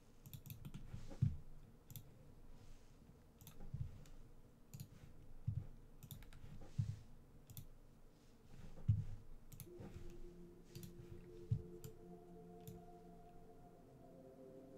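Faint, irregular computer mouse clicks, about a dozen sharp clicks each with a soft knock. About two-thirds of the way through, a soft sustained chord of steady tones comes in.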